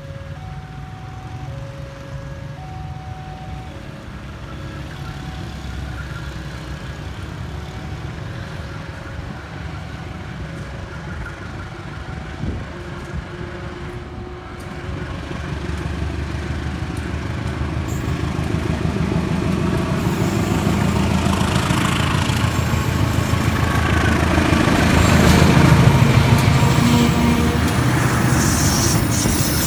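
Level crossing warning alarm chiming two alternating tones, then a diesel-hauled passenger train approaching and passing. The locomotive's engine rumble and the wheel and rail noise grow steadily louder, loudest as the locomotive goes by near the end, followed by the rattle of the coaches.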